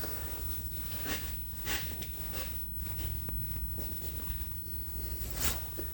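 Faint, short scraping and rubbing as the shaper's slide is rocked by hand on its V-way to check the gib for play, over a low steady hum. The adjusted gib leaves almost no movement, reading about half a thou.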